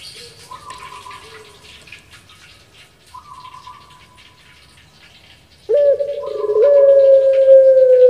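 Puter pelung, a Barbary dove kept for its long coo, giving a loud, long drawn-out coo that starts suddenly about two-thirds of the way in and is still going at the end. Fainter cooing comes before it.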